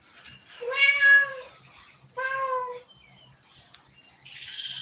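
A cat meowing twice, the first meow about a second in and the second about two seconds later, over steady high trilling of crickets.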